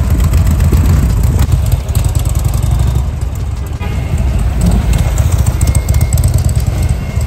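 Harley-Davidson XL1200S Sportster's air-cooled V-twin engine running loud at low revs, with an uneven, pulsing beat.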